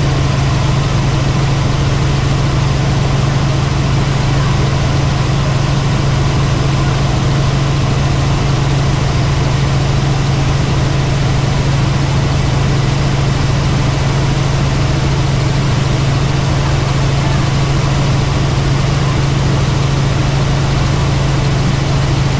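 Helicopter in flight: a loud, steady drone of engine and rotors with a strong low hum.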